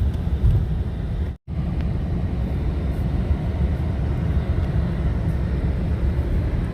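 Toyota Tacoma driving on a snow-covered road in four-wheel drive: a steady low rumble of engine and tyre noise. It cuts out completely for a split second about a second and a half in.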